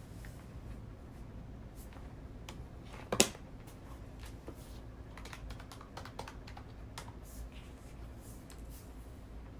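Light, scattered key taps and clicks at a desk, with one sharp, much louder click or knock about three seconds in, over a low steady room hum.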